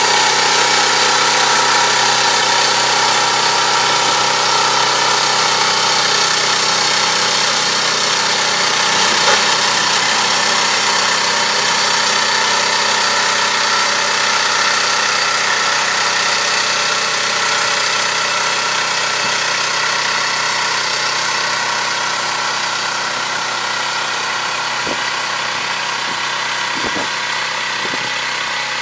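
Engine of a self-propelled crop sprayer running steadily as it drives off and away, its sound slowly getting quieter. A few light knocks come near the end.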